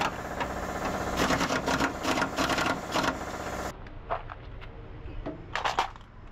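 Handheld electric power tool running hard against the steel front bumper of a truck, with a dense mechanical whirring that stops abruptly just under four seconds in. A few light knocks and clicks of hand work on the fender follow.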